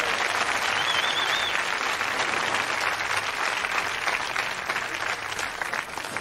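Studio audience applauding, a dense steady clapping that eases slightly near the end.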